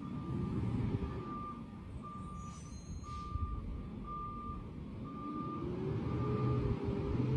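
Garbage truck backing up: its reversing alarm beeps about once a second while the diesel engine revs up and eases off twice. The beeping stops near the end.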